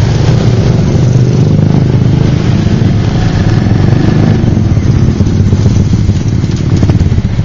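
Motorbike engine running steadily at low speed from the rider's own bike, in slow, congested street traffic.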